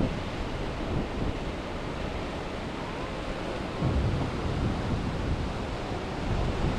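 Wind buffeting the microphone in gusts, with a stronger gust about four seconds in, over a steady rush of surf breaking on rocks.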